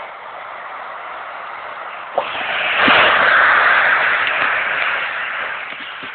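Yaesu VX-6 handheld radio on the ISS downlink at 145.800 MHz with no voice on the channel: a steady FM static hiss between the station's transmissions. There is a click about two seconds in, and the hiss grows louder from about three seconds in.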